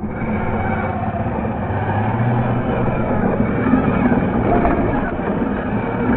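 Steady motor running noise of a 1:12-scale RC 4x4 crawler driving over rocky dirt, with a low hum under it. It comes in suddenly at the start and holds steady.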